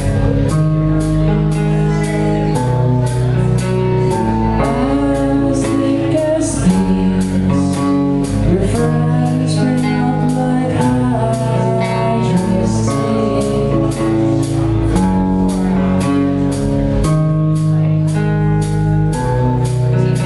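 Live rock band playing: electric guitar, bass and drum kit over a steady beat, with a male voice singing.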